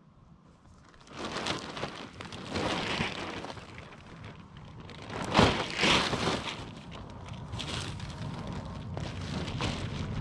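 A camouflage tarp rustling and crinkling as it is picked up, shaken out and folded, in uneven bursts that begin about a second in and are loudest around the middle.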